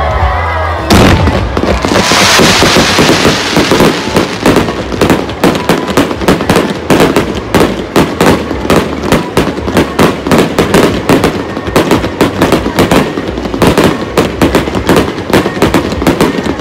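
Set-piece fireworks going off: a sudden start about a second in and a hissing rush, then dense, rapid crackling and popping reports, many a second.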